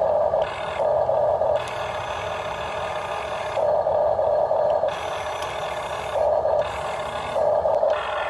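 Electric gear motors of a remote-control model excavator (Huina 1550) whining steadily, growing louder in several bursts of about a second as its arm and bucket motors are worked.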